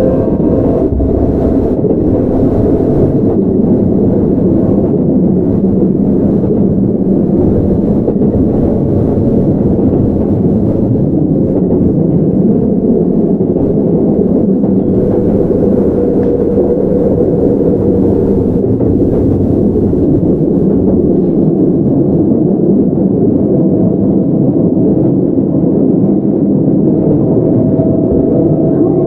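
Keihan 9000 series electric train heard from on board: the steady rumble of wheels on rail while running between stations. A faint whine from the Toyo GTO-VVVF traction equipment is heard at the start and comes back near the end.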